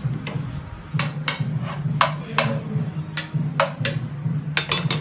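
A knife chopping on a cutting board: about a dozen sharp knocks in uneven groups, several in quick succession near the end, over a steady low hum.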